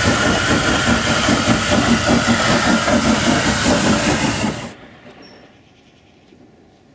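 LNER Class D49 three-cylinder 4-4-0 steam locomotive working a train, its rhythmic exhaust beats under a loud hiss of steam. The sound cuts off suddenly about four and a half seconds in, leaving only faint background with a few light clicks.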